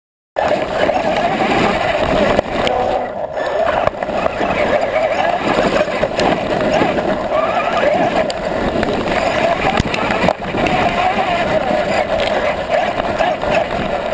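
Traxxas E-Revo brushless RC truck driving over grass and dirt, picked up by a camera on the truck: a steady, wavering run of motor and drivetrain noise with a few bumps, which starts and cuts off abruptly.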